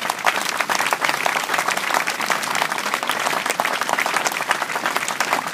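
Audience applauding: many hands clapping in a dense, steady wave.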